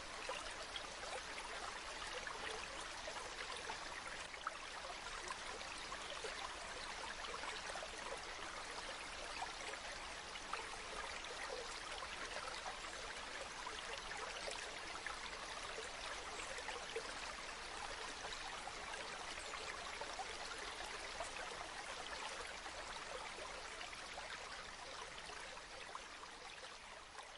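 Steadily flowing water, a stream running and trickling, fading out gradually near the end.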